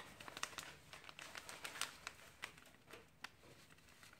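Foil sachet crinkling and rustling in the fingers as seasoning powder is shaken out of it, a faint run of irregular soft ticks.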